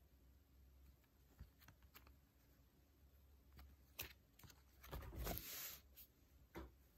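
Faint handling of banknotes in clear plastic sleeves: a few light clicks and taps, then a short rustle about five seconds in as the stack is laid down flat on a hard surface.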